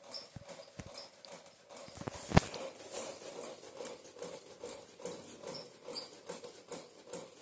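Thekua deep-frying in medium-hot oil in a kadhai, the oil sizzling and crackling with many small irregular pops. One louder click comes about two and a half seconds in.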